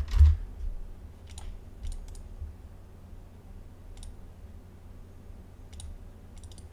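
Computer mouse clicking: single clicks and quick double clicks spaced a second or two apart, with a louder low thump and click right at the start.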